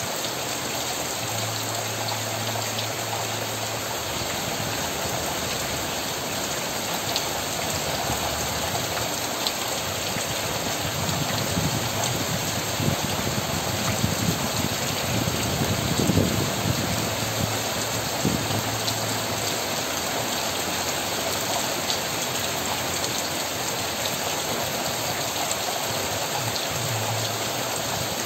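Steady rain falling on leaves and surfaces, a dense, even hiss with a brief louder swell about halfway through.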